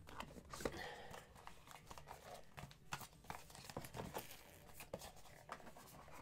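Faint rustling and crinkling of cardboard packaging, with scattered small clicks and taps, as a beauty advent calendar door is opened and the box inside handled.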